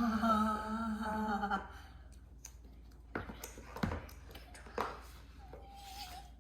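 A person humming a steady, slightly wavering note for about a second and a half, followed by a few short taps and clicks from handling the phone box, and a brief higher hummed note near the end.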